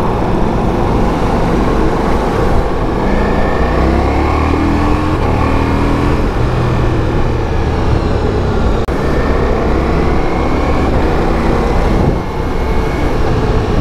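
Ducati Multistrada V4S's 1158cc V4 engine accelerating under way, its note rising in pitch through the gears twice, over a steady rush of wind noise.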